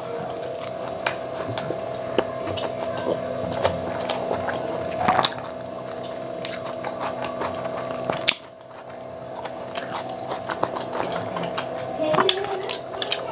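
Close-miked chewing and wet mouth sounds of someone eating paneer chilli by hand, with many short sharp clicks and smacks. Under them runs a steady background hum that drops out briefly about eight seconds in.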